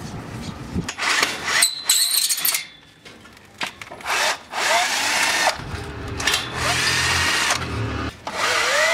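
Cordless drill/driver run in about five short bursts, its whine rising in pitch as it spins up and falling as it stops, working the screws of a sliding gate's steel gear rack.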